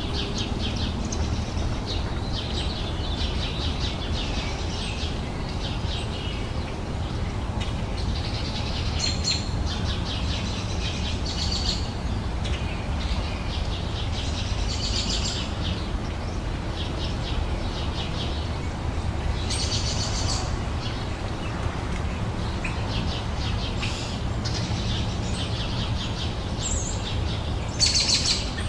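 Songbirds chirping and singing, with short trilling phrases coming every second or two and a steady low rumble underneath.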